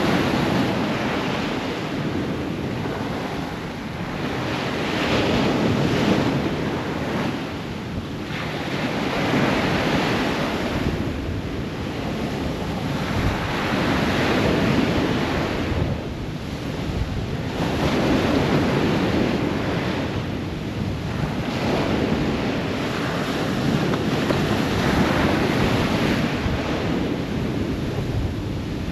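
Ocean waves breaking on a shore, the surf swelling and falling back every few seconds.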